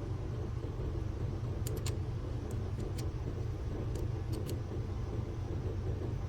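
Shear-sharpening machine's motor running with a steady low hum while the ride line of a nicked curved grooming shear blade is worked, with a few light clicks.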